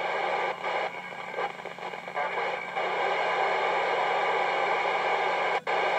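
Static hiss from a Kenwood TM-V71 mobile transceiver's speaker on the SO-50 satellite downlink, with no station coming through. The hiss dips briefly several times early on and cuts out for an instant near the end.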